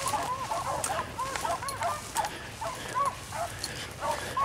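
A pack of beagles baying on a rabbit's trail: several dogs giving short, arching yelps that overlap, several a second, the sound of hounds running a line in full cry. Sharp crackles of cedar branches close by are mixed in.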